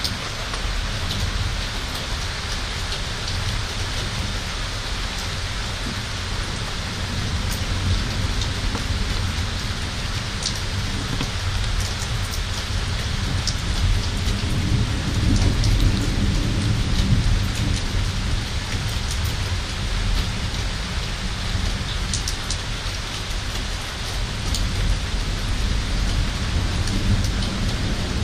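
Heavy summer thunderstorm rain falling steadily, with sharp ticks of drops striking nearby surfaces. A low rumble of thunder swells about halfway through.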